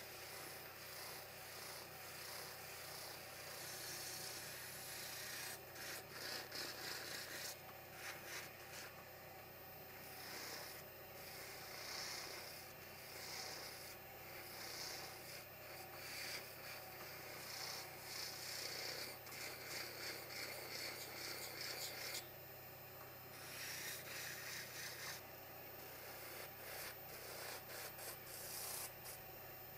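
Handheld rotary tool with a small sanding drum sanding a Manchurian walnut figurine. A steady motor hum sits under a rasping scrub that swells and eases as the drum is pressed on and moved over the wood.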